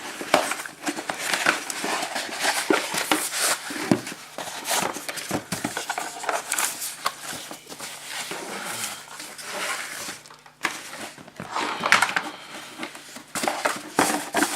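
Packaging being unpacked by hand: irregular rustling and crinkling with scrapes and light knocks.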